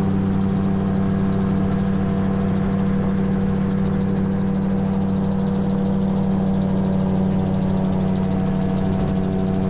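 A gyrocopter's turbocharged Rotax engine running steadily in flight, heard from on board as an even drone with a strong low hum and several fainter higher tones above it.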